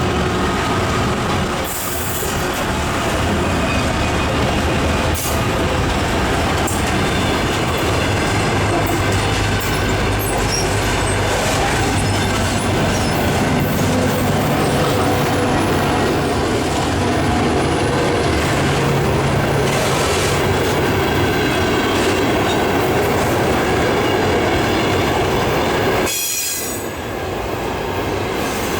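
A 2ES6 Sinara electric locomotive hauling a repair train rolls by close, with steady loud wheel-and-rail noise. The noise dips briefly near the end, then picks up again.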